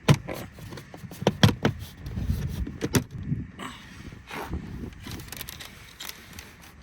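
Sharp plastic clicks and knocks with rustling and scraping as interior trim and cable are handled inside a minivan. The strongest knocks come about a second and a half in and again near three seconds.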